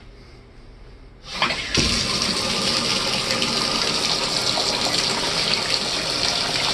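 Water from a tub-shower valve turned on a little over a second in, then running and splashing steadily into the bathtub.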